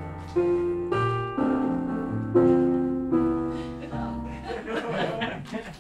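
Piano music: a light tune of struck notes and chords that fades out near the end.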